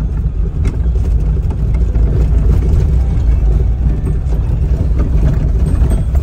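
Car cabin rumble while driving over a rough unpaved road: a steady low drone from the engine and tyres, with a few light knocks from the car jolting.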